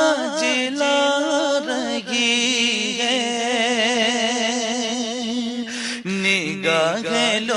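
Male naat reciter singing a long, ornamented devotional phrase with wide vibrato, held over a steady low drone; about six seconds in the voice drops to a lower phrase.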